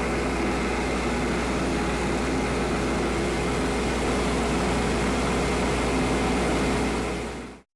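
Wood lathe running steadily at speed with a wooden blank spinning between chuck and live centre: a constant whir over a low motor hum. It cuts off suddenly near the end.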